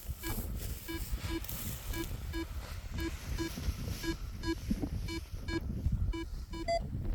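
A paragliding variometer beeping in quick short pulses, about two and a half a second, the tone it gives in rising air while the glider climbs. Wind rumbles on the microphone underneath.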